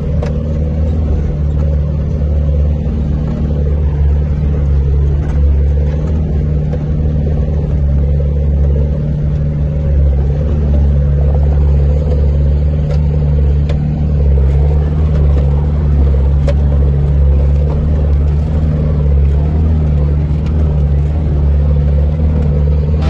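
Off-road 4x4's engine running steadily at low revs in a low gear as it crawls up a rocky track, a constant deep drone heard from inside the cab.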